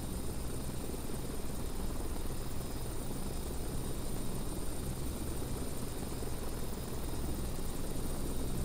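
Steady low rumble of a Boeing 777 twinjet's engines on final approach, unchanging in level, with a thin steady high tone above it.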